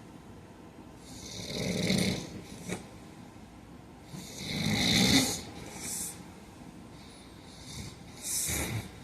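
A man snoring in his sleep: three snores about three seconds apart, each swelling up and then fading, the last one shorter.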